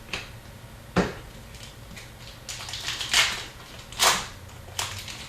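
Hockey trading card packs and cards being handled: a sharp click about a second in, then several short rustling swishes as packs are opened and cards slid through.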